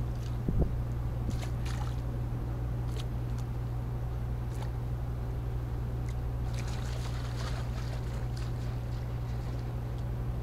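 Harbour ambience: a steady low hum with faint lapping and trickling of water against the quay, and a single thump about half a second in.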